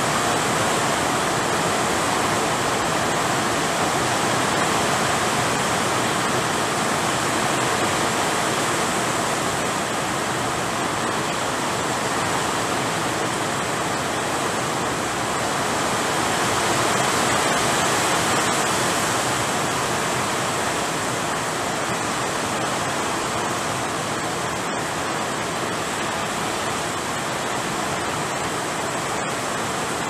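Steady rain falling, an even hiss with no let-up.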